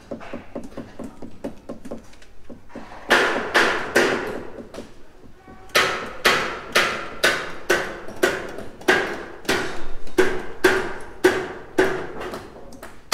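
Hammer blows on steel, each strike ringing briefly: steel braces being hammered tight into steel floor framing before they are welded. Lighter, quicker taps at first, then heavier blows at about two a second from about halfway in.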